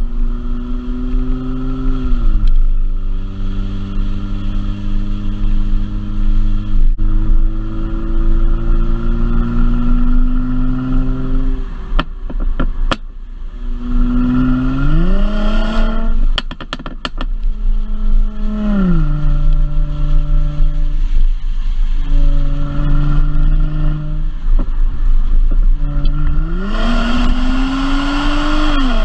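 Mercedes-Benz C400's twin-turbo V6 running, its pitch climbing and then dropping sharply several times between steady stretches. A few sharp clicks come in the middle.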